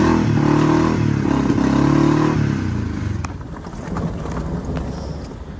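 A motor vehicle's engine accelerating: its pitch rises and falls twice, then it settles into a quieter rumble with a few light clicks in the last couple of seconds.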